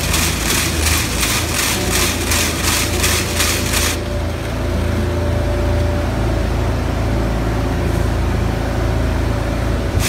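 Topping spreader running, with a steady low engine hum. A loud, rapidly pulsing hiss rides on top and drops away about four seconds in, leaving the hum.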